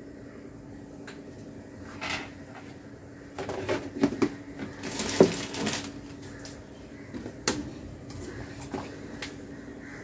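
Kitchen utensils and containers being handled while cooking: a few knocks and clinks, with a brief rushing noise about five seconds in, over a steady low hum.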